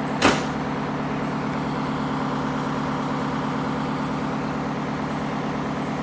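Fire engine idling steadily, a constant low hum, with a single sharp knock about a quarter of a second in.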